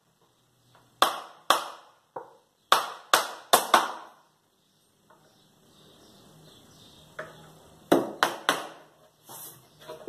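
Claw hammer driving nails into pallet-wood boards: sharp, ringing blows, a run of about five in the first few seconds, then a pause, then three quick blows near the end.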